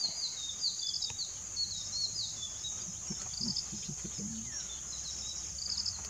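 A steady high-pitched insect drone with many short bird chirps repeated over it.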